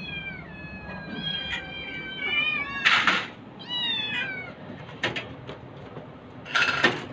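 Several domestic cats meowing again and again, calls falling in pitch and sometimes overlapping, hungry cats begging as their food is brought to the cage. A few short clattering knocks come in between.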